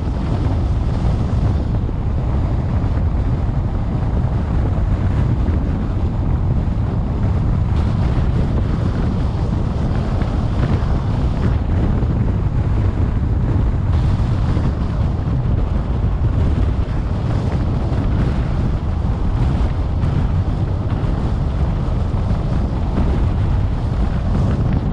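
Steady low road and wind noise from a car driving along a paved highway.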